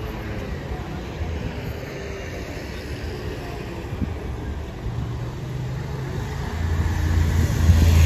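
Street traffic passing, with a heavy vehicle's low rumble growing louder over the last second or two.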